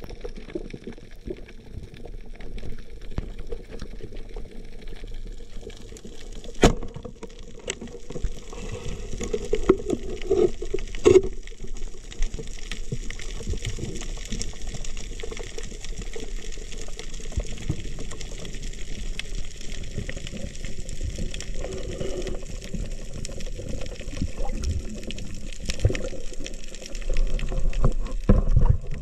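Underwater sound picked up through an action camera's waterproof housing: a steady muffled rush of water, broken by a few sharp clicks and knocks, a loud one about a third of the way in and another shortly after.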